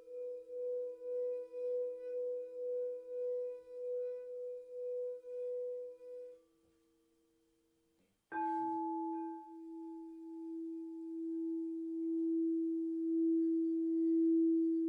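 Quartz crystal singing bowls ringing: a pulsing tone over a lower steady hum fades away about six seconds in. After a short quiet, a bowl is struck and its low tone swells as the mallet circles the rim.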